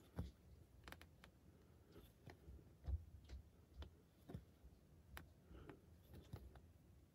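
Cross-stitch needle and thread being worked through 18-count Aida fabric: faint, irregular ticks and taps, about two a second.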